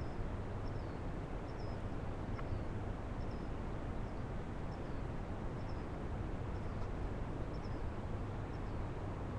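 Steady hiss and low hum from the owl-box microphone, with a faint high-pitched chirp repeating a little more than once a second.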